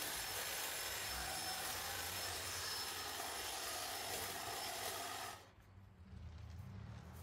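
Snapper 48V cordless hedge trimmer running with its steel blades cutting through shrub branches, sped up fourfold. The steady cutting noise stops abruptly about five seconds in, leaving a quieter low rumble with a few light clicks.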